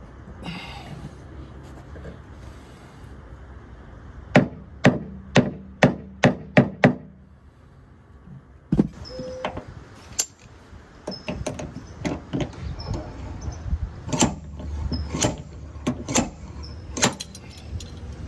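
Paintless dent repair tapping on a Tesla Model 3's rear quarter panel: a tool strikes the body metal in a run of about six sharp taps half a second apart. After a pause comes a longer, uneven series of softer taps.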